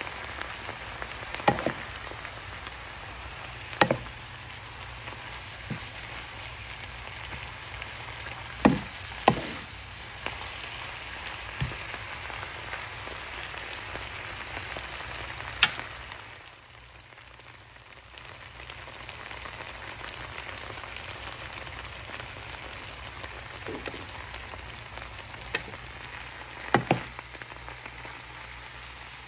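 Sweet potato leaves and onion sizzling as they sauté in a frying pan, a steady hiss with a low hum underneath. Several sharp knocks come through it as the greens are stirred with a wooden spatula, and the sizzle dips briefly about halfway through.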